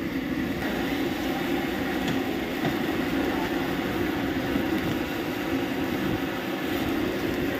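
High-pressure gas wok burner running at full flame: a steady, unbroken rush of noise.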